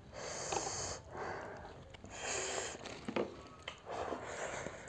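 Slurping of very spicy instant noodles mixed with sharp sniffing breaths, in about five noisy pulls, each under a second long.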